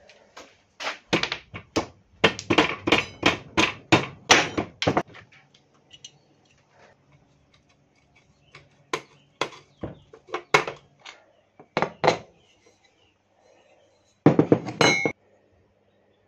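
Metal knocks and clanks from a pocket bike's steel front fork being taken apart on a workbench. A quick run of knocks lasts about four seconds, a few single knocks follow, and a short ringing metallic clatter comes near the end.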